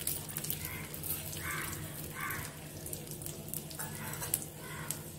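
Coriander seeds crackling faintly on a hot iron griddle with a little oil: scattered tiny ticks and pops as they begin to dry-roast, over a low steady hum.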